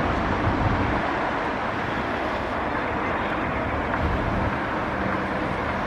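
Alco-built 44 class diesel-electric locomotive approaching at speed with its train, a steady engine drone with rail running noise.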